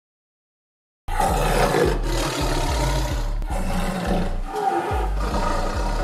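Silence for about a second, then tiger roaring and growling starts abruptly, mixed with dramatic music carrying heavy bass beats.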